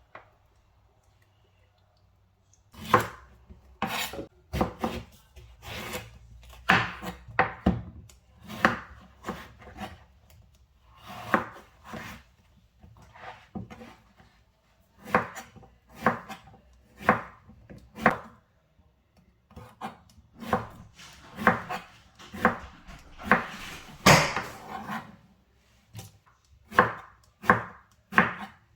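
Kitchen knife chopping food on a cutting board: single sharp cuts, unevenly spaced at roughly one a second, starting about three seconds in.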